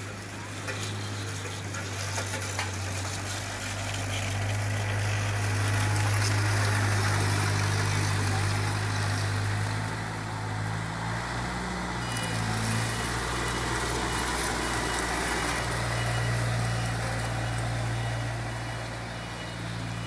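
Diesel engine of a small CASE tandem road roller running steadily as the roller rolls over fresh asphalt, a low hum under a broad rumble that grows louder as it comes close.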